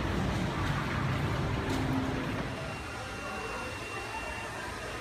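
Steady background noise of a busy open space, which drops to a quieter indoor room tone about two and a half seconds in, with a faint steady high-pitched whine.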